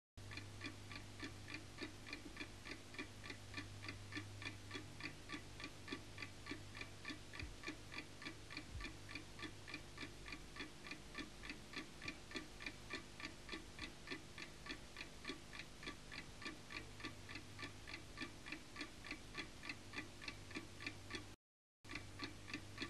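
A clock ticking steadily and faintly, about three ticks a second, over a low hum. The sound cuts out for a moment near the end.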